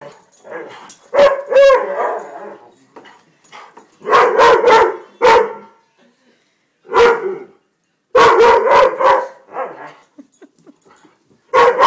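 Weimaraner barking during rough play with a person's hands, in several bouts of quick barks: near the start, about four seconds in, and again around seven to nine seconds.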